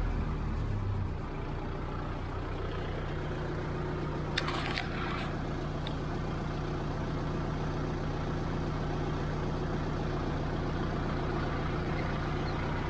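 Kubota 4501 tractor's diesel engine coming down from raised revs in the first second, then idling steadily.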